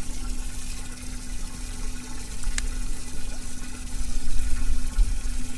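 Water running and splashing into a boat's live well, with a steady low hum from the pump, and one sharp click about two and a half seconds in.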